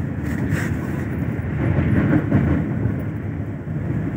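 Train crossing a bridge, heard from inside a carriage: a steady low rumble of wheels and carriage that swells a little about halfway through.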